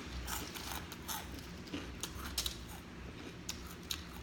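Close-miked chewing of crunchy food: irregular crisp crunches and clicks, two or three a second.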